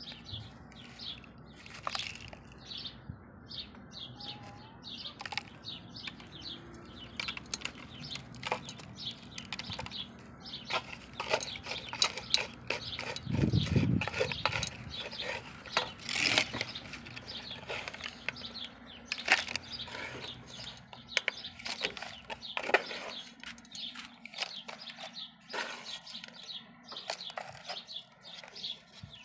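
Crackling and scraping of dry potting mix and plastic flower pots being handled during repotting, with a louder bump near the middle. Birds chirp in the background.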